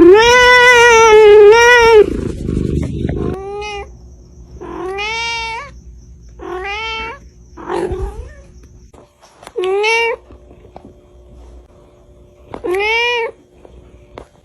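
Kitten meowing over and over: one long, loud meow at the start, then about six shorter meows a second or two apart with quiet gaps between. A low rumble sits under the first three seconds.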